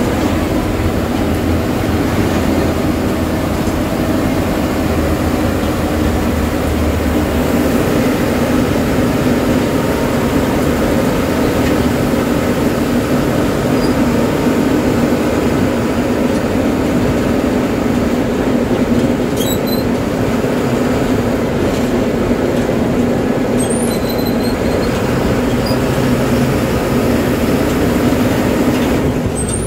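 Bus engine and road noise heard from the driver's cab: a steady, loud drone as the bus cruises along the highway.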